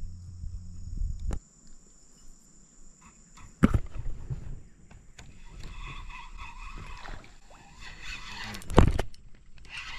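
Spinning rod and reel being handled: a couple of sharp knocks, then the reel cranked in a steady whir from about five seconds in, with another loud knock near the end.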